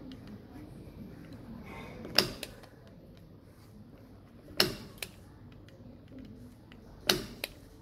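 Spring-loaded impact punch-down tool snapping three times, about two and a half seconds apart, as it seats Cat 5e wires into a keystone jack's terminal slots. Each loud snap is followed by a fainter click.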